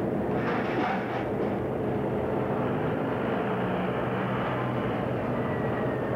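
Steady low engine drone with a hum, and a short burst of hiss about half a second in.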